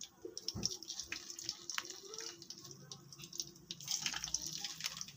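Tempeh slices frying in oil in a wok, with a steady sizzle full of small, irregular crackles and pops; the oil is only moderately hot.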